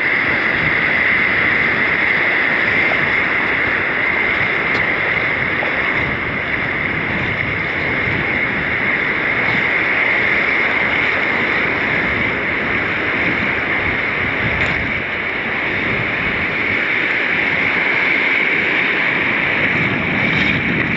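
Ocean surf washing in the shallows, with wind on the microphone: a loud, steady rush of noise.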